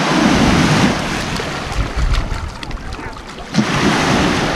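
Shore surf washing onto a sandy beach, with wind rumbling on the microphone; a wave breaks at the shoreline near the end.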